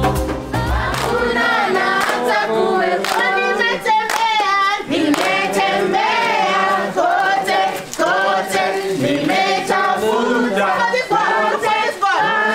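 A group of people singing together unaccompanied, with hand claps all through. Backing music with a bass line cuts out about a second in.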